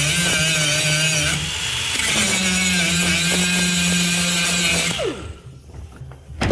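Electric power tool running and cutting a door panel, its motor pitch dipping under load partway through, then winding down and stopping about five seconds in. A short click near the end.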